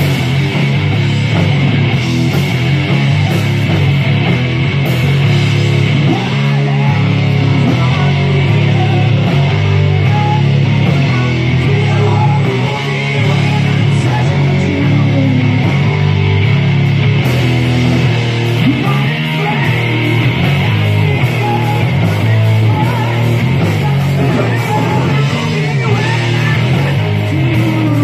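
A rock band playing live: loud guitar-driven music over a steady, heavy bass line.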